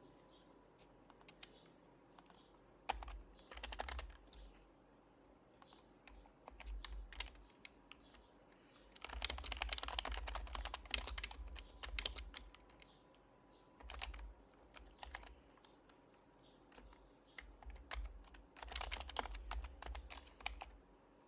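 Typing on an HHKB Professional HYBRID Type-S keyboard with silenced Topre keys: runs of quick keystrokes with short pauses between them. The longest flurry comes about nine to twelve seconds in, and shorter bursts come near three, seven, fourteen and nineteen seconds.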